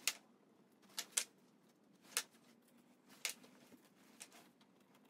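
Small metal clicks and clinks as bolts and parts from a Type 9 gearbox casing are handled and set down in a plastic parts tray, about half a dozen separate sharp clicks spread out one after another.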